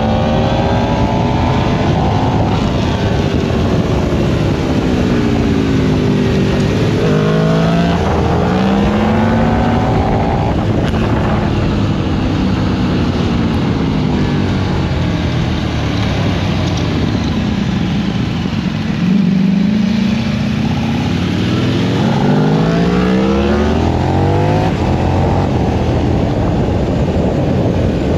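Onboard sound of a high-performance naked motorcycle being ridden hard, its engine pitch climbing as it accelerates and falling away as it slows, several times over.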